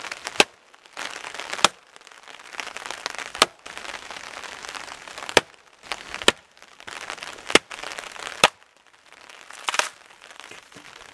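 A hatchet chopping into a dead, dry log: about eight sharp knocks at uneven intervals one to two seconds apart, the blade being driven along the log's natural split to cleave it lengthwise.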